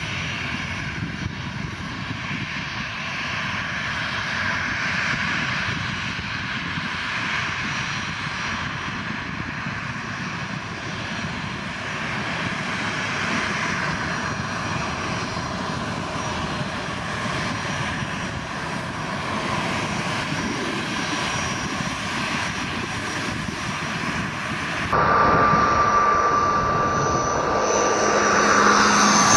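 Ryanair Boeing 737-800's twin CFM56 jet engines running at taxi power as the airliner taxis, a steady jet whine and rush. About 25 seconds in, this gives way to the steady high-pitched propeller drone of a twin turboprop airliner on approach, growing louder near the end.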